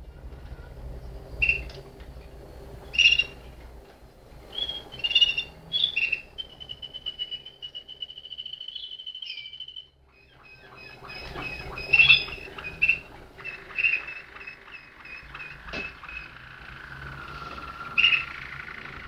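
Malinois (Waterslager) song canaries singing: short chirped phrases and a rolling trill, broken by a brief silence about ten seconds in, then more song with a slow falling whistle-like tone near the end.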